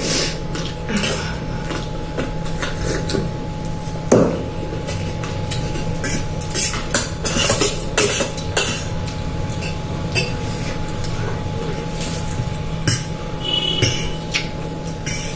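Forks clinking and scraping against metal plates as two people eat noodles, in irregular short clicks with a sharper knock about four seconds in, over a steady electrical hum.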